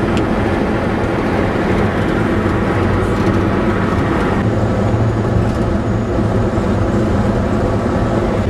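Steady rumble of a road vehicle on the move: engine hum and road noise.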